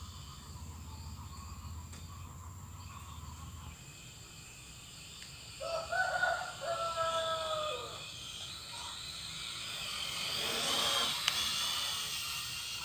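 A rooster crowing once, about six seconds in: one pitched call lasting a couple of seconds that falls away at the end. Faint outdoor background, with insects buzzing more loudly near the end.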